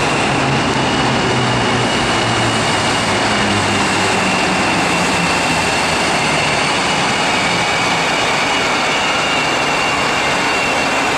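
Electric locomotive-hauled passenger train, a PKP EP09, moving slowly along the platform: steady rumble and hiss with a constant high whine. A low hum fades out about halfway through.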